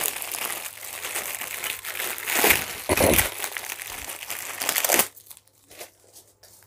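Plastic packaging crinkling and rustling as a pack of kitchen tools is unwrapped by hand, with a few louder crackles; it stops about five seconds in.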